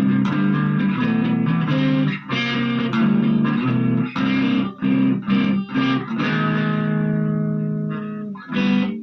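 Electric guitar through a Marshall MG15GFX 15-watt combo amp on its overdrive channel, dry with the effects and reverb off. It plays a riff of short, chopped chords, lets one chord ring for a couple of seconds about six seconds in, then hits one more stab near the end.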